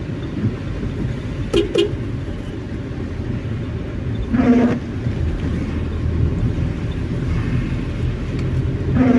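A car driving: a steady low rumble of engine and road noise with tyre hiss from a drizzle-wet road. Two short sharp sounds come about a second and a half in, and brief pitched tones come about halfway through and again at the end.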